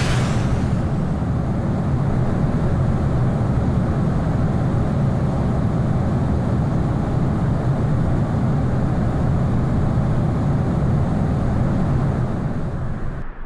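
Steady low rumble of an airplane in flight, with the tail of a whoosh fading out in the first second; the rumble cuts off suddenly near the end.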